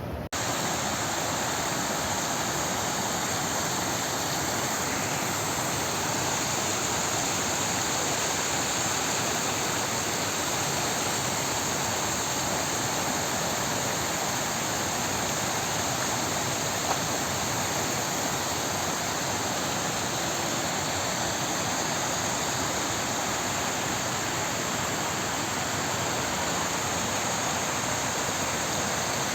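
Water rushing steadily over a small waterfall, an even, unbroken hiss.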